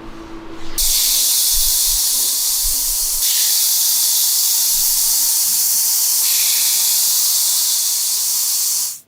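A loud, steady hiss of compressed air from a workshop air tool, starting about a second in and cutting off sharply near the end.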